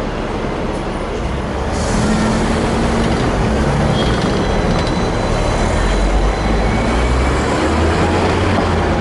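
Hong Kong double-decker electric tram with VVVF drive, heard from the upper deck, pulling away and running: a steady rumble of motors and wheels on the street rails that grows louder about two seconds in, over the noise of surrounding city traffic.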